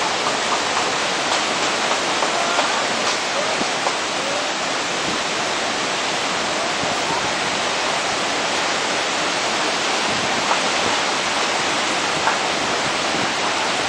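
Fast, turbulent floodwater of the Kaveri River rushing through rocky rapids: a steady, dense rush of white water that stays level throughout.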